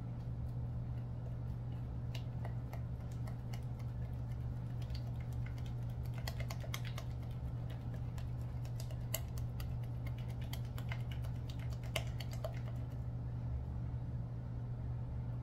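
A spoon clicking against a plastic measuring cup as a thick powdered-sugar glaze is stirred: many small irregular clicks that stop near the end. A steady low hum sits under it.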